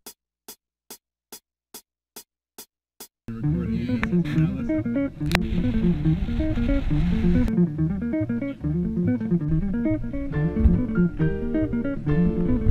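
Background music: eight evenly spaced clicks, about two and a half a second, then about three seconds in a band track starts with a strong bass line and plucked guitar.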